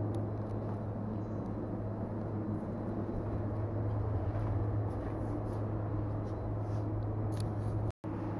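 A steady low machine hum with an even background noise, broken by a brief dropout to silence near the end.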